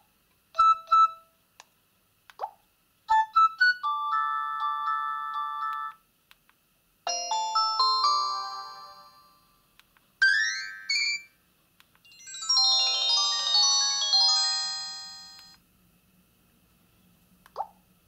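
Nokia 225 4G feature phone's loudspeaker playing about five short alert-tone previews in turn: brief electronic chimes, a short melody, a falling run of notes, a rising chirp and a dense cluster of chimes. A short tick near the end.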